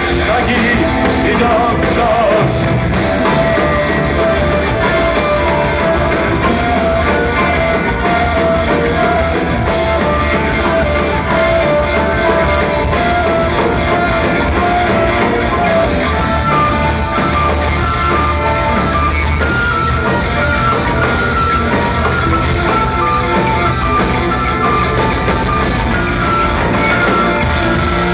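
Live rock band playing a loud instrumental passage: a drum kit under long held melodic lines.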